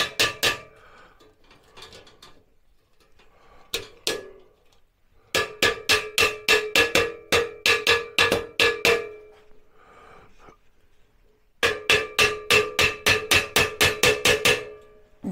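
A mallet striking the top of a black steel shelving frame, the metal ringing after every blow. A few quick blows come at the start and one about four seconds in, then two long runs of steady tapping at about four blows a second.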